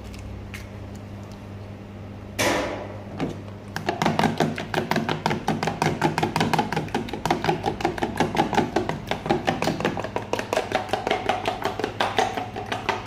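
An egg being beaten by hand in a clear plastic tub: fast, even clicking strokes, several a second, starting about four seconds in. A single brief louder noise comes just before, about two seconds in, over a low steady hum.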